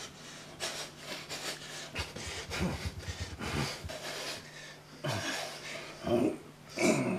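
Strained breathing and faint gasps with the rustle of clothes and bedding as two people struggle on a bed, over a faint steady low hum.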